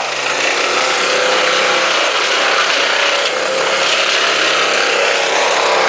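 Cat 226B skid-steer loader's diesel engine running steadily under work, its pitch drifting slightly.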